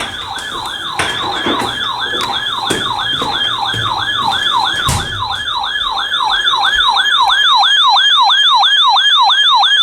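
Electronic siren alarm of a weather-alert radio receiver, a warbling run of quick falling sweeps about three a second that grows steadily louder. Faint radio static crackles under it in the first half.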